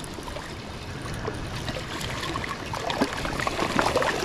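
A hooked fish splashing at the surface of shallow water as it is reeled in, over a steady wash of lapping water. The splashes grow busier and louder in the last second or two.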